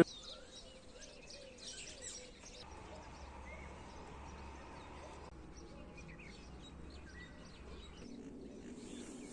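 Faint outdoor ambience with scattered birds chirping and a faint steady low hum in the middle stretch.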